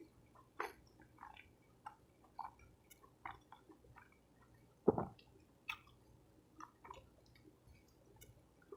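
Someone chewing a soft taco close to the microphone: irregular short mouth clicks and smacks, the loudest one about five seconds in.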